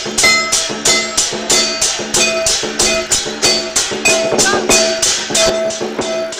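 Lion dance percussion: a drum with clashing cymbals and a gong, struck in a fast steady rhythm of about three beats a second, the metal ringing on after each stroke.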